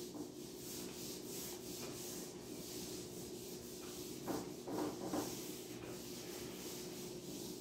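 A whiteboard duster wiped back and forth across a whiteboard, a faint run of short rubbing strokes as the marker writing is erased.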